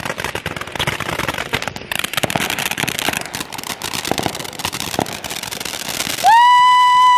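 Ground fountain firework spraying and crackling with rapid pops for about six seconds. Near the end a loud, steady whistling tone starts and holds.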